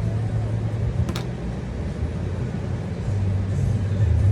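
Steady low mechanical hum, with one light click about a second in.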